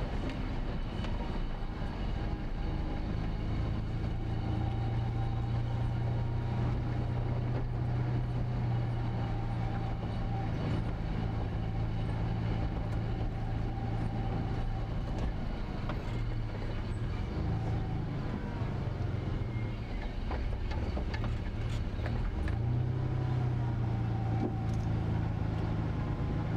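A car's engine and tyre noise, heard from inside the car as it drives slowly in town traffic: a steady low engine hum that breaks up for a few seconds about three-quarters through, then holds steady again.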